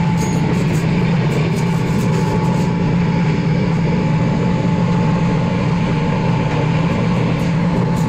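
Steady drone of workshop machinery running: a low hum with a constant higher whine, and faint light ticks over it.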